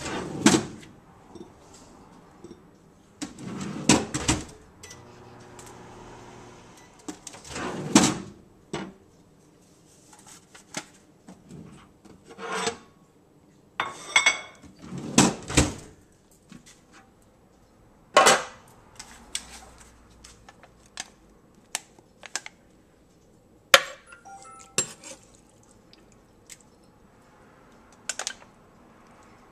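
Dishes and cookware clattering as they are handled: a string of knocks, clinks and scrapes with short pauses between, the first near the start as a drawer microwave is pulled open.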